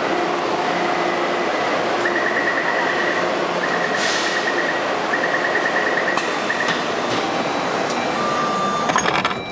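Taipei Metro C301 train with retrofitted propulsion running, its rolling noise overlaid by steady electrical whining tones from the traction inverter, which the uploader notes makes an abnormal noise. A high whine comes in stretches a few seconds in, and a lower steady tone sounds near the end.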